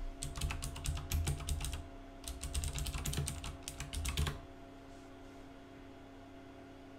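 Typing on a computer keyboard: rapid key clicks in two quick runs with a short pause between them. The typing stops about four seconds in, leaving a faint steady hum.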